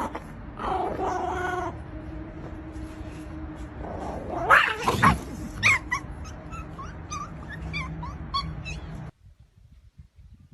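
A pet animal calling: pitched whining sounds, a louder sweeping cry about four and a half seconds in, then a run of short rising calls. The sound cuts off abruptly about nine seconds in.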